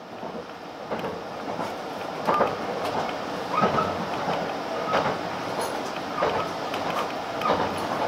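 681 series electric train running, heard from inside the passenger car: a steady rumble with rhythmic clacks of the wheels over rail joints about every 1.3 seconds. It grows louder over the first couple of seconds.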